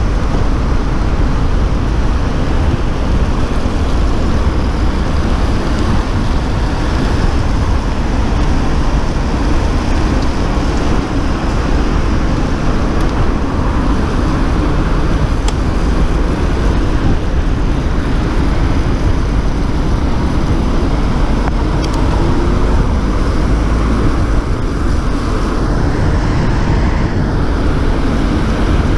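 Steady wind rush on a riding cyclist's camera microphone, mixed with the hiss of car traffic on a wet road.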